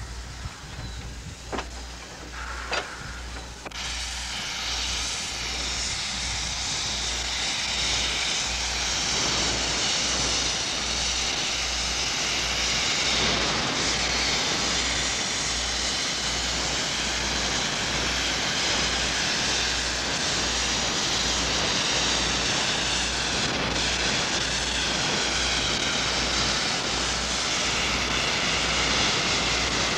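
Wood-burning steam locomotive hissing steam, the hiss swelling about four seconds in and then holding steady. Two sharp clicks come just before the swell.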